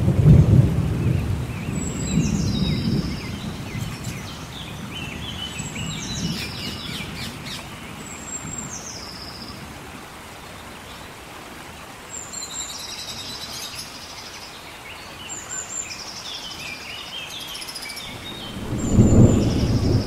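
Thunderstorm: steady rain with rolling thunder, loudest at the start and again near the end, with weaker rumbles between. A bird calls repeatedly over it in short, high, falling notes.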